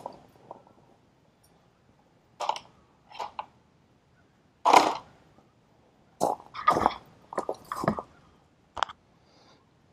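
Scattered short knocks, scrapes and rustles of hands working with tools, with quiet gaps between them. The loudest comes about five seconds in.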